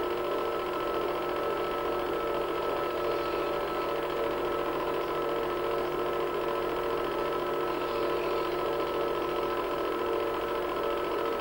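Movie projector running: a steady motor-and-fan whirr with a few constant tones, unchanging throughout.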